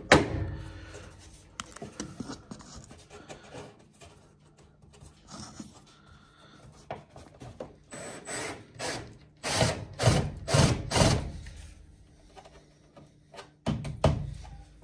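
A loud knock, then the top panel of an LG front-loading washing machine scraping as it is pushed and slid along the cabinet's metal rails: several rubbing strokes in the middle and one more near the end.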